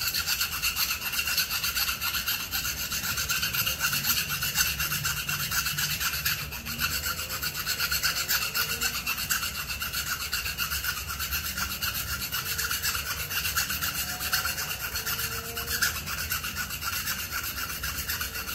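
Small hand file rasping steadily against the cut end of an air rifle's barrel shroud, working around the inside edge at an angle to deburr it: cleaning off the shavings left after the shroud was cut shorter.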